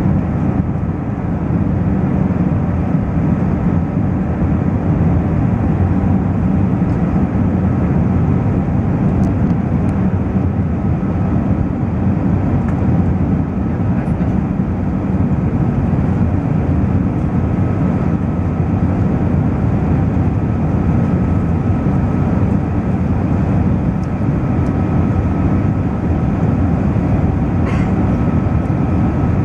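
Airbus A380 jet airliner noise: a loud, steady low rumble with a faint thin whine on top.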